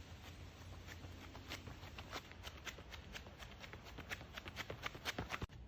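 Faint running footsteps on an asphalt path, quick short steps a few times a second.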